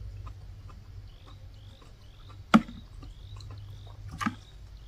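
A metal spoon clinks sharply twice against a ceramic bowl while scooping soup, about two and a half and four seconds in. Faint high chirps repeat about twice a second behind it.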